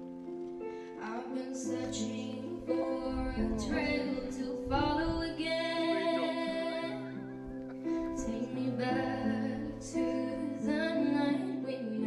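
Background music: a song with a singing voice over held instrumental notes.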